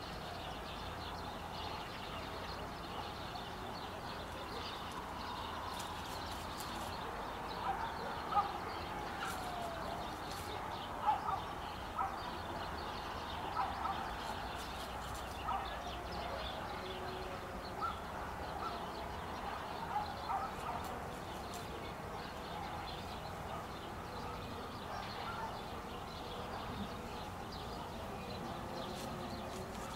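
Birds calling outdoors: many short calls and chirps over a steady background hiss, busiest in the middle stretch.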